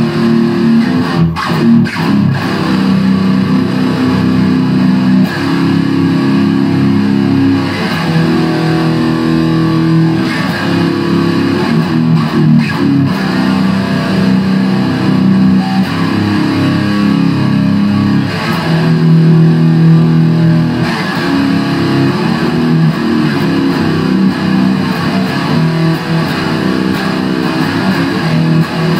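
Epiphone SG Special electric guitar played loud through a Line 6 Spider III amp, improvised heavy-metal playing that mixes picked riffs with long held chords.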